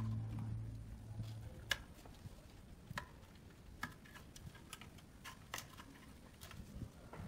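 Faint, irregular clicks and light taps, roughly one every second, from small parts being handled at the floor of a cement tank. Background music fades out in the first second and a half.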